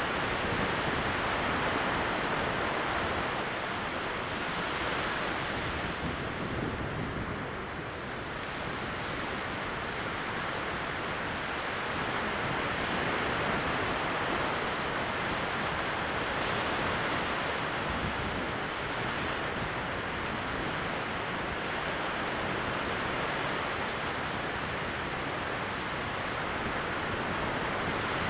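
Small waves breaking gently on a calm sea at low tide, far out across the wet sand flats: a steady wash of surf that swells and eases slowly.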